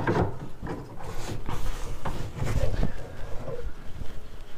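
Wooden locking wedge being worked into its slot at the top of an old pine wardrobe: a few light knocks and soft scraping of wood on wood.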